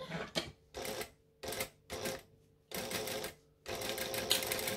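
Industrial sewing machine stitching through layers of vinyl: a few short bursts of rapid needle strokes, then two longer runs of about a second each, re-sewing a missed section of the seam.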